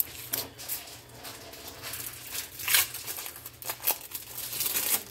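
Thin plastic wrapper of an individually wrapped processed cheese slice crinkling as it is peeled off, in irregular crackles that are loudest a little under three seconds in.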